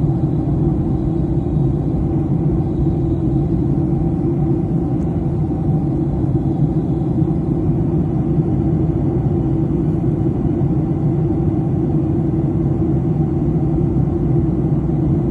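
Steady cabin rumble of a Boeing 737 in flight, heard from a window seat over the wing: turbofan engine noise and airflow, deep and even, with no change in pitch or level.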